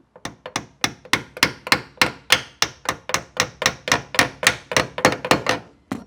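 A rapid run of sharp, evenly spaced knocks, about three to four a second, each with a short ring, stopping near the end.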